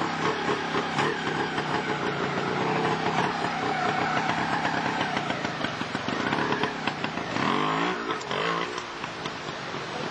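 Trials motorcycle engine running at low revs under light, stop-start throttle. About three-quarters of the way through it revs up and falls back, then runs a little quieter.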